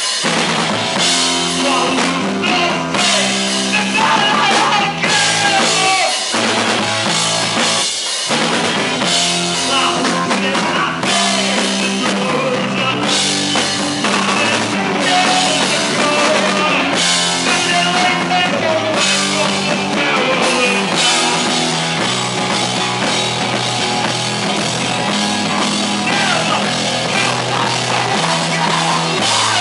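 Punk rock band playing live, with a loud drum kit driving the song.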